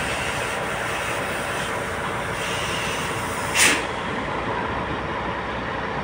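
Sany tractor unit's diesel engine running steadily, with a short burst of air hiss about three and a half seconds in.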